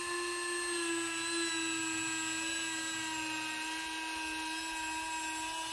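Dremel 4000 rotary tool running at speed with a half-inch sanding band on a drum mandrel, set in the A576 guide and sanding a 45-degree bevel on the edge of MDF: a steady high-pitched whine.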